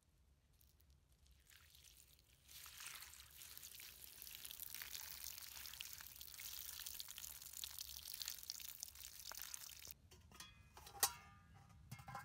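Water poured from a kettle splashing over basil leaves in a wicker basket, a steady stream lasting several seconds. After it stops, a few sharp knocks near the end, the loudest a single clink about a second before the end, as the pot on the fire is handled.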